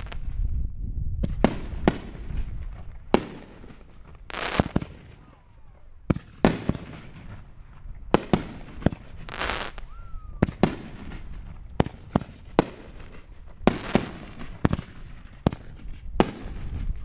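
Aerial fireworks display: a fast, irregular run of sharp bangs and pops from bursting shells, more than one a second, with crackling between the reports.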